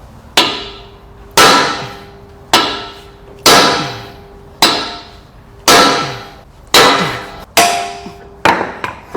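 Hammer striking metal in a steady rhythm, about nine blows roughly a second apart, each ringing out with a metallic tone.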